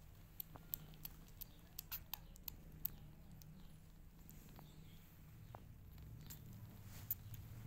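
Newborn kittens suckling at their mother: faint wet clicks and smacks, a cluster in the first three seconds and one more near the end, over a low steady rumble.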